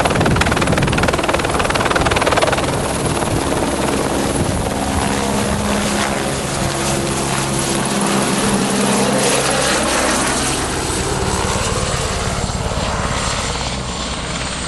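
Helicopter running close by, loud, with a steady high whine over the rotor noise; the sound eases off slightly near the end.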